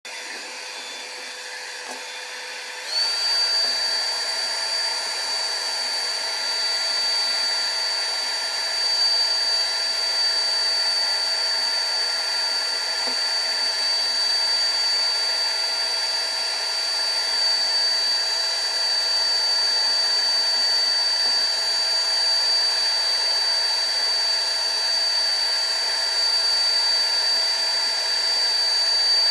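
Electric hot-air blower, used to heat and soften the phone's glass adhesive, running steadily with a whine and a rush of air. About three seconds in it is switched up to a higher setting, and its pitch and loudness step up.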